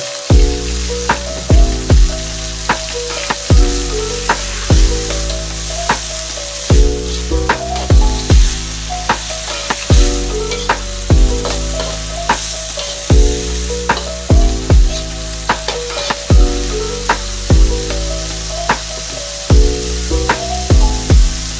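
Long beans and chilli stir-frying in a hot wok: a steady sizzle with a metal spatula stirring and scraping, under background music with changing notes and a steady bass.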